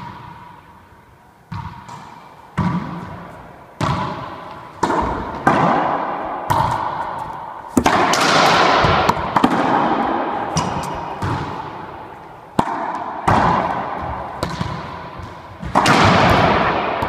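Racquetball rally: a rubber ball cracking off racquet strings and the court's walls and floor, about a dozen sharp hits, each ringing on in the hard-walled enclosed court.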